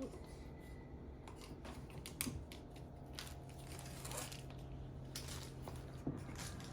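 Faint scattered clicks and scrapes of chopsticks poking among tumbled rocks in the grit slurry of a rock tumbler barrel, over a steady low hum.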